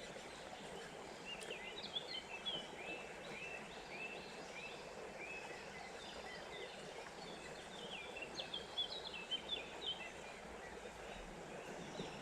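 A small songbird singing in two bouts of quick, chirping phrases over the steady rush of a small stream.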